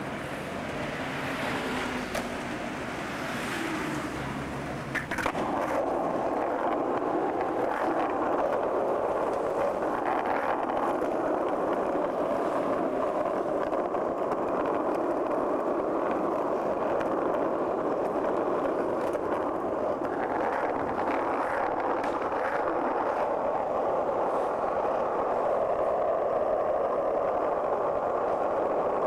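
Skateboard wheels rolling on asphalt street, a steady gritty rolling rumble. A sharp click about five seconds in, after which the rolling is louder.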